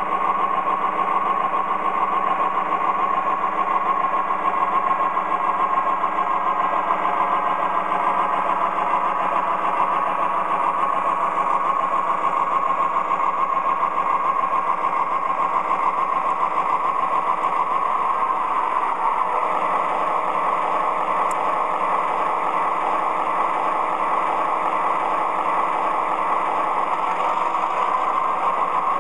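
MTH Premier O scale GP40 model diesel locomotive running on the track, its onboard sound system playing a steady diesel engine sound through a small speaker over the whir of its motors. A tone rises in pitch near the end.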